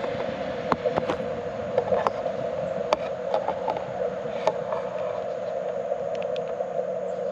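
Steady band-limited hiss from the Icom IC-705 transceiver's receiver heard through its narrow CW filter, with no Morse signal on frequency. Irregular sharp clicks sound over it, about ten in all.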